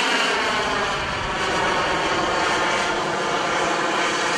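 Turbine engine of a radio-controlled model jet in flight, a steady whine made of many stacked tones over a rushing noise, its pitch easing down slightly in the first second.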